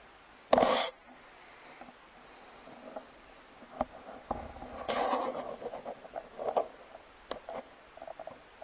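Deer snorting: a short, loud, breathy blast about half a second in and a longer one about five seconds in, with light clicks and rustles between.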